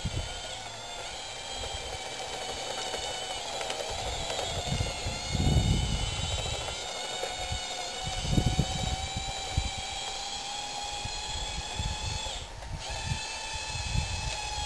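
Radio-controlled scale bulldozer's electric drive motors whining steadily as it tracks across the dirt pile, with irregular low rumbles underneath.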